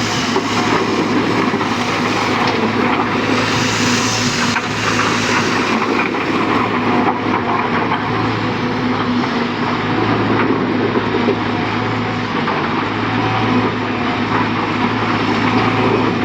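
Heavy diesel engine of construction machinery running steadily at work, its hum swelling and easing slightly, with a few short knocks along the way.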